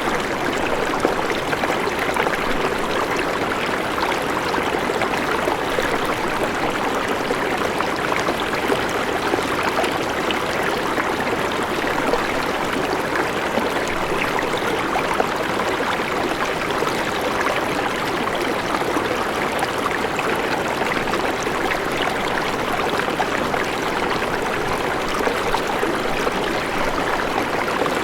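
A river running steadily over rocks, a continuous rushing and babbling of flowing water.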